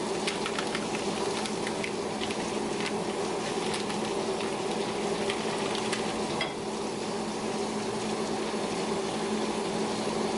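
Steady sizzling of food cooking in pans on a gas stove, over a low steady hum. Small crinkles and clicks from a butter wrapper being unwrapped come in the first few seconds.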